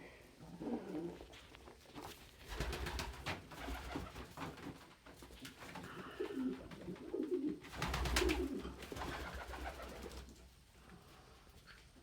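Domestic pigeons cooing in low, throaty calls, with a cluster of coos around six to eight seconds in. Bursts of rustling close to the microphone come around three seconds in and, loudest, around eight seconds in.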